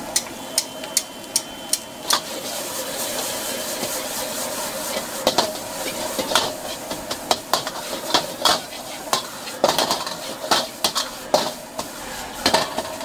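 Fried rice being stir-fried in a steel wok over a gas flame: a metal ladle strikes and scrapes the wok in irregular sharp clanks, a few a second, over a steady sizzle.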